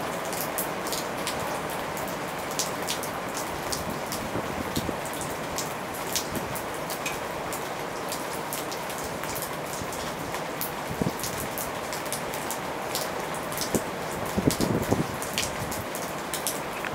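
Heavy rain falling steadily, with many individual drops ticking sharply close by. A few louder rushes come near the end.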